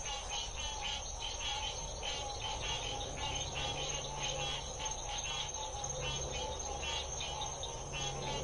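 Chorus of frogs calling at night-pond density: many short, pulsed calls overlapping, several a second, in an unbroken din.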